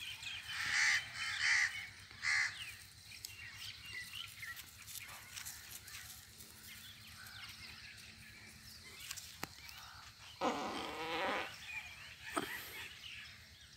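Three short, harsh calls in the first few seconds, then a young goat bleating about ten seconds in: one long bleat, followed a second later by a shorter one.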